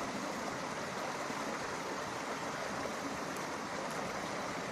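Steady rushing of running water, an even noise with no breaks.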